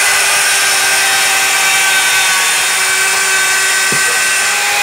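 Mafell electric chain beam saw with a carbide-tipped fine-cut chain running under load as it cuts through softwood beams: a loud, steady motor tone over the rasp of the chain. A short knock about four seconds in.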